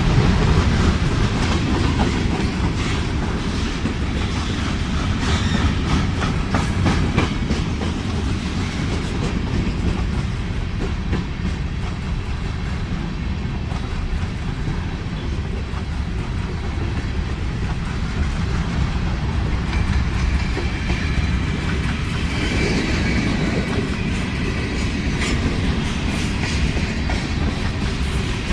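Freight train cars rolling past at steady speed, with a continuous low rumble and wheels clacking over the rail joints. A faint high wheel squeal joins in for the last several seconds.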